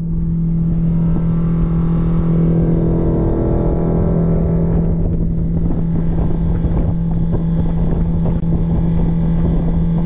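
Boat's outboard motor running at a steady speed, one unchanging engine note over a low rumble.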